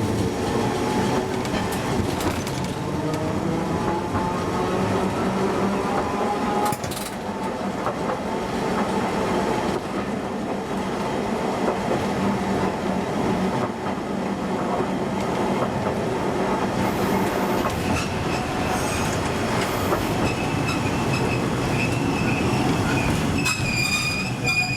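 Okayama Electric Tramway 3000-series tram running, heard from the driver's cab. Its motor and gear whine rises in pitch over the first several seconds as it gets under way, over steady wheel-on-rail rumble. A high squeal sets in around twenty seconds in and grows stronger near the end.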